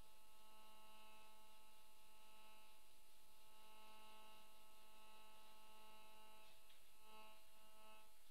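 Faint steady electrical hum, several steady tones sounding together, with a faint brief rustle about six and a half seconds in.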